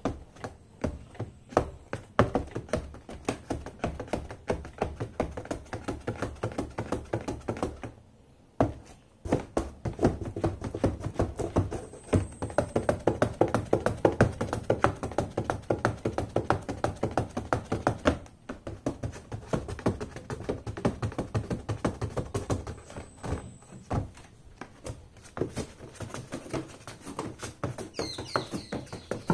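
Silver pointed-toe high-heel pumps tapping rapidly on the cardboard bottom of a box, a quick run of hollow knocks that stops for about a second a third of the way in, then carries on.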